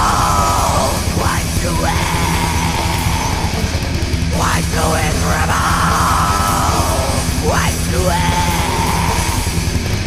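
Death/thrash metal recording: distorted guitars, bass and drums with harsh yelled vocals over them.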